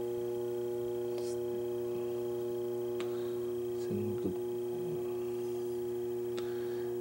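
Steady electrical mains hum, a buzzing drone of several even tones, with a few faint light clicks as the speaker's cloth grille is handled.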